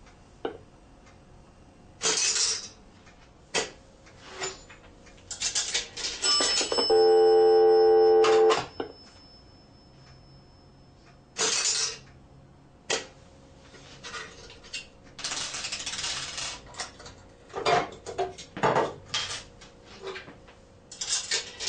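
Clicks, knocks and coin rattles from a circa 1930 two-piece payphone's switchhook and internal coin mechanism. A short buzzing tone comes about seven seconds in, and a buzzing dial tone starts near the end as the receiver is lifted off the hook.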